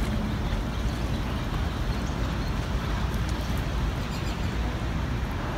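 Steady outdoor ambience beside a river: an even low rumble and rushing noise with no distinct events.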